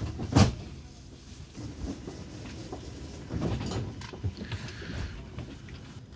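A sharp knock about half a second in, then fainter clunks and rustling, heard inside a double-deck passenger train carriage standing at a platform.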